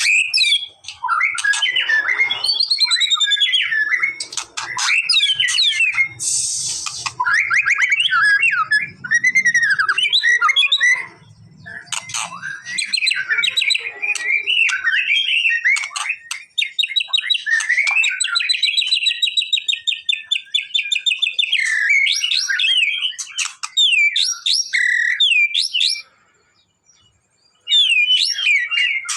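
White-rumped shama (murai batu) singing: a long, varied song of loud whistles, chirps and rapid trills, including one long even trill midway. Near the end the song stops for about a second and a half, then starts again.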